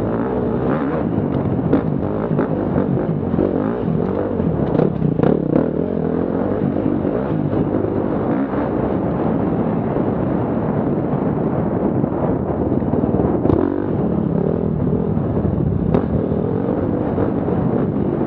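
Enduro motorcycle engine running hard close up, its speed rising and falling as the bike is ridden along a rough trail, mixed with rushing wind noise and rattling. A few sharp knocks come through, the loudest around two-thirds of the way in.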